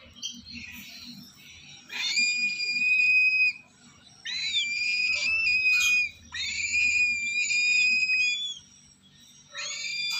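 Lesser sulphur-crested cockatoo chicks giving long, harsh, screeching food-begging calls, each held for about two seconds: three in a row with short breaks, and a fourth starting near the end.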